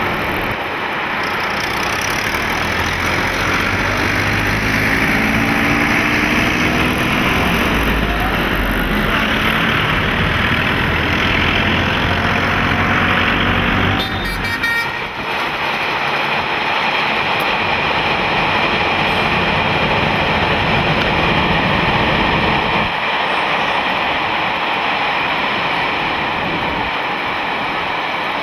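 Steady urban traffic noise from road vehicles, with an engine rising in pitch a few seconds in and a brief dip about halfway through.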